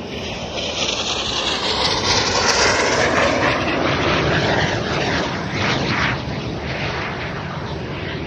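Aermacchi MB-339 jet trainers of the Frecce Tricolori flying past, their single Viper turbojets heard as a loud jet rush. The sound swells to a peak about two to three seconds in, sweeps in tone, and then slowly fades away.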